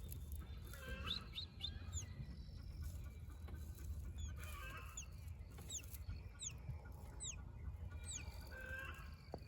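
A chick peeping from inside a pipped egg: about a dozen short, high, falling peeps, faint and spaced irregularly. The chick is in the middle of hatching. A soft human whistle is heard now and then, coaxing it to answer.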